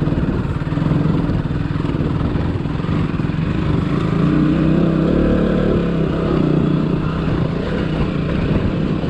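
Motorcycle engine running steadily, its revs rising from about four seconds in and easing back down near the end.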